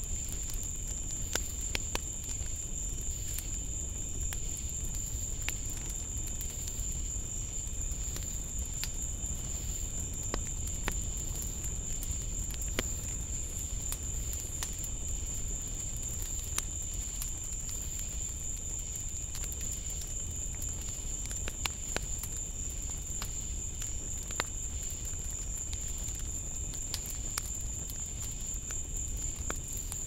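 Night insect chorus, crickets or katydids, as one steady, unbroken high-pitched trill, with scattered faint clicks over a low background noise.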